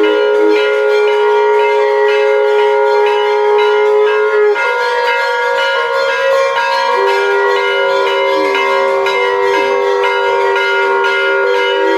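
Conch shell (shankh) blown in long held notes, breaking off about four and a half seconds in and sounding again, slightly lower, from around seven seconds. Under it a hand bell (ghanti) rings continuously with quick repeated strikes.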